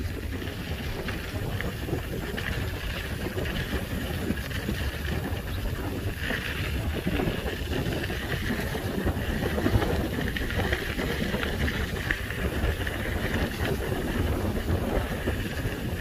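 Wind buffeting the microphone and a low rumble of bicycle tyres on a rural dirt road during a ride, with a steady high buzz behind it that grows louder at times.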